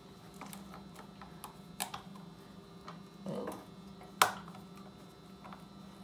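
Scattered small metallic clicks and taps of screws and a hand tool being fitted and turned on a minibike's frame, the sharpest click about four seconds in.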